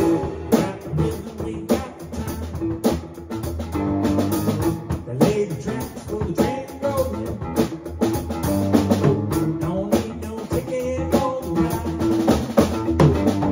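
A drum kit played live in a steady rock beat, with kick, snare and cymbal hits, together with pitched band instruments playing along.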